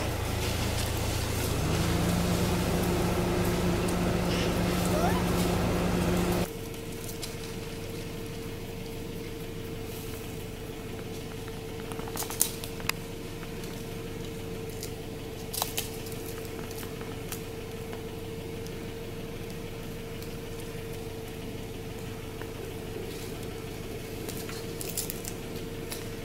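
Steady hum of an idling vehicle engine with low tones, cutting off abruptly about six seconds in to a quieter steady hum, with a few sharp clicks later on.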